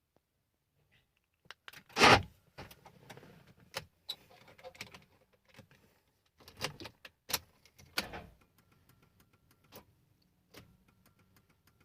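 Scattered clicks, rattles and knocks, the loudest a short thump about two seconds in.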